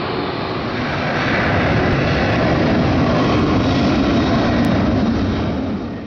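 Jet airliner turbofan engines running. The sound is steady and loud, grows louder about a second in, and cuts off sharply near the end.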